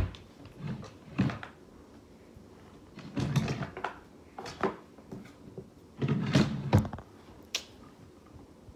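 Objects being handled and set down on a tabletop: a series of knocks, thuds and rustles in bursts every second or two.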